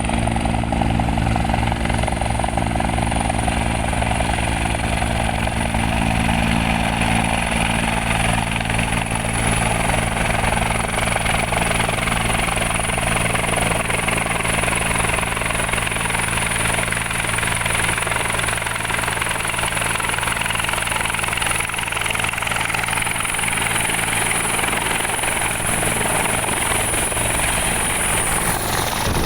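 Helicopter running close by with its rotor wash blowing hard: a steady low engine-and-rotor drone under a rushing noise, with a thin high whine held throughout.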